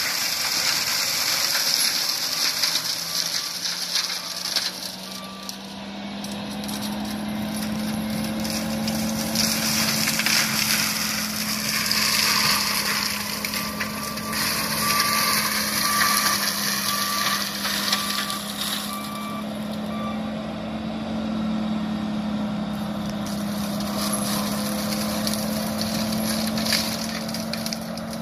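John Deere 333G compact track loader running hard with its MH60C mulching head spinning, chewing into brush with a steady drone and crackling. Its backup alarm beeps about once a second partway through and again near the end.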